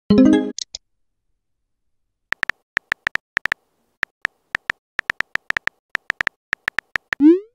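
Smartphone keyboard tap clicks, a quick irregular run of keystrokes as a text message is typed, with a short notification chime at the start and a quick rising swoosh near the end as the message is sent.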